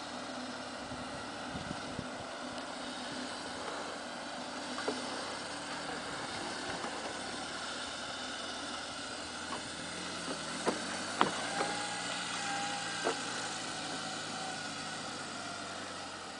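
First-generation Smart ForTwo's engine running steadily as the car drives, with a few short clicks a little past the middle.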